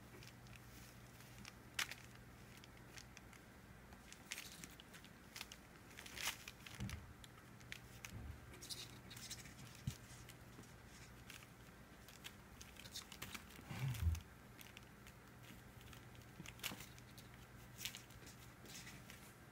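Faint rustling of a cloth towel and light taps from two 4-week-old kittens' paws as they play on it. A soft low thump comes about two-thirds of the way through.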